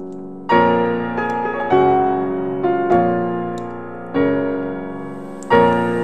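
Slow piano music: a chord struck about every second and a quarter, five in all, each ringing on and fading before the next.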